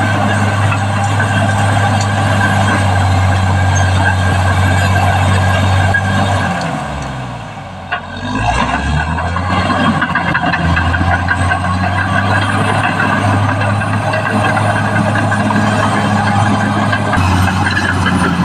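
Caterpillar D6R XL bulldozer's diesel engine running hard and steady. About six seconds in, the revs fall away, then climb back up about two seconds later.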